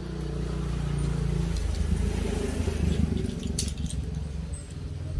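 A low engine rumble that swells and then fades, like a vehicle passing by. A few sharp clicks of puzzle pieces being handled come about three and a half seconds in.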